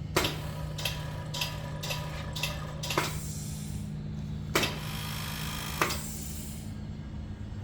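Oil rotary vacuum pump running with a steady hum. Sharp clicks come over it, six about every half second in the first three seconds, then two more spaced out.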